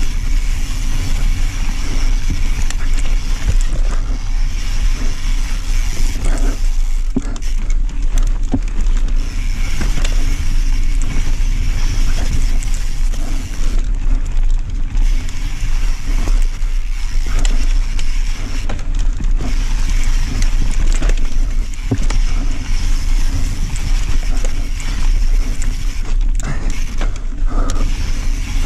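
Enduro mountain bike ridden fast down a loamy dirt forest trail: steady low rumble of tyres and wind on the microphone, with frequent clicks and rattles from the bike over the ground.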